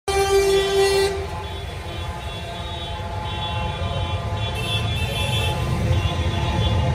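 A vehicle horn sounds loudly for about a second, then fainter horn tones go on over the steady low rumble of passing tractor and truck engines.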